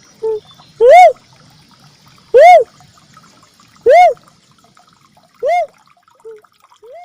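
Red cuckoo-dove (uncal merah) lure call: a series of loud single coos, each rising and then falling in pitch, about one and a half seconds apart, with a short soft note near the start and the last coos fading.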